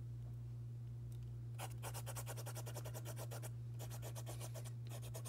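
Pen scribbling on notebook paper in quick back-and-forth strokes, crossing items off a handwritten list. It starts about a second and a half in and comes in bouts with two short breaks, over a steady low hum.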